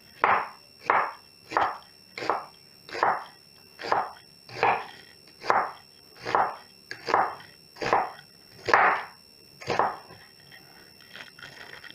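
Samura chef's knife slicing a quartered onion on a wooden cutting board: a steady rhythm of about thirteen cuts, roughly one every three-quarters of a second, that stops about ten seconds in.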